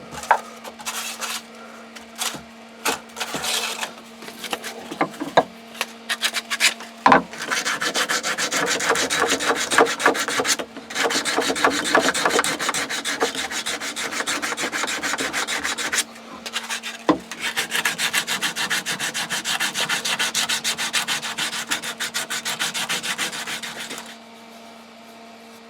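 Sandpaper rubbed quickly back and forth over the cut end of a wooden trowel handle made from an old broom handle, sanding it smooth, in long spells with two short breaks. A few knocks from handling come before the sanding starts, and a faint steady hum runs underneath.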